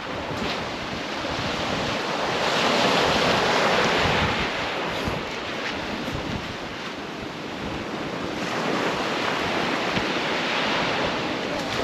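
Sea surf breaking and washing on the beach, with wind buffeting the microphone. The surf swells twice, about two to four seconds in and again near the end.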